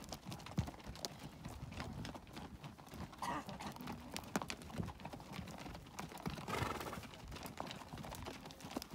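Hoofbeats of a string of pack mules walking on a packed dirt trail, an irregular overlapping clip-clop of many hooves. A brief, louder noisy burst comes about two-thirds of the way through.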